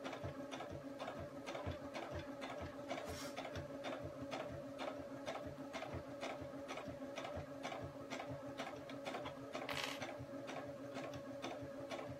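Domestic sewing machine running steadily, stitching around a circle through layered cotton and fleece. A motor hum carries an even tick of stitches, roughly three to four a second.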